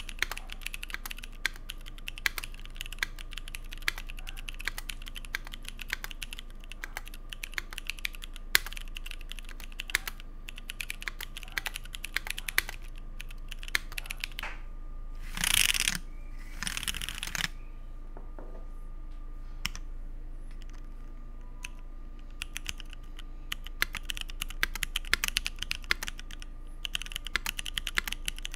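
Typing on a Keycult 1/60 mechanical keyboard with C3 Equalz Dragonfruit tactile switches in an aluminium plate under GMK keycaps: a steady run of fast, irregular keystroke clacks, with two louder, longer bursts of sound about halfway through.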